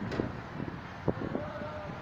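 Vehicle rumble with wind buffeting the microphone, broken by a few sharp knocks and rattles, and a brief steady tone near the end.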